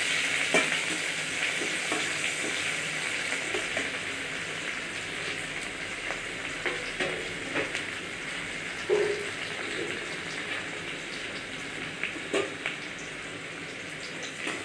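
Chopped onions sizzling in hot mustard oil in a steel kadhai as they are fried toward brown, with a few short scrapes and taps of a metal spatula against the pan.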